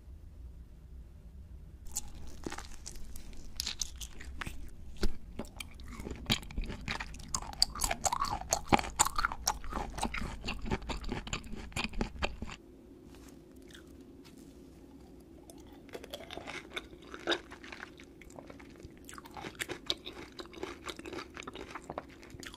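Close-miked ASMR biting and chewing of a large octopus tentacle: dense, sharp wet clicks and crunches starting about two seconds in. After an abrupt cut, sparser, quieter chewing follows.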